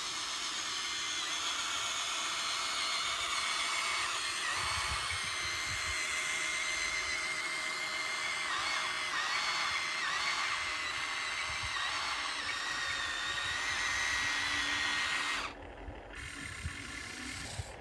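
Radio-controlled model excavator's small electric motor whining steadily at a high pitch, the tone wavering slightly as it works. It cuts off about fifteen seconds in, leaving a quieter sound.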